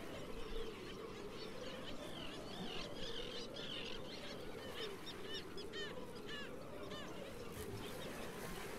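Birds calling: a run of short chirps and quick hooked, rising-and-falling calls, thickest through the middle, over a steady wavering drone.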